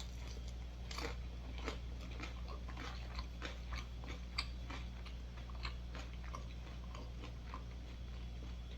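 Close-miked chewing of food, with many small irregular mouth clicks and smacks.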